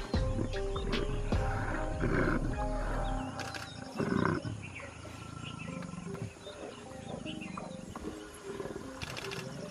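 Male Sri Lankan leopard growling and snarling, the threat calls of a territorial confrontation between two males; the loudest growl comes about four seconds in.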